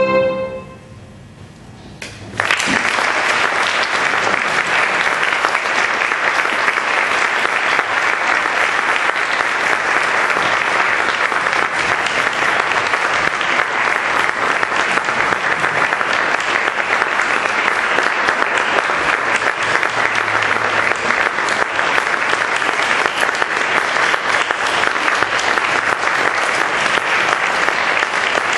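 The last note of a violin and piano fades away, a short hush follows, and then about two seconds in an audience breaks into steady applause that keeps going.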